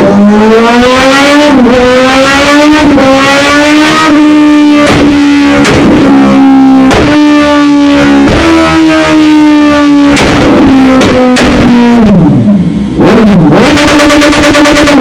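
Suzuki GSX-S750 inline-four revving through a loud aftermarket sport exhaust: the note climbs over the first two seconds and is held high for several seconds. It drops and swings up again near the end, with sharp pops throughout.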